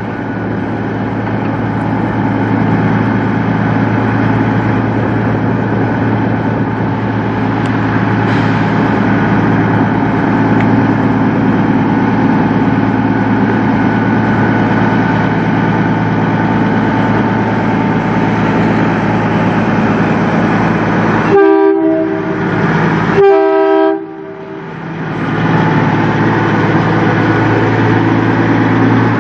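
Black Peterbilt semi truck's diesel engine running steadily as it pulls slowly past, hauling a loaded flatbed. About three-quarters of the way through, two loud horn blasts in quick succession, each a second or so long.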